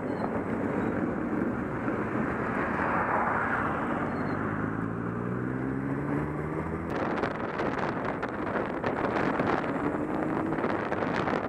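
Motorcycle engine running under the rush of wind on the microphone; the engine note rises from about four seconds in as the bike speeds up. About seven seconds in the sound changes abruptly to a louder, hissier wind rush.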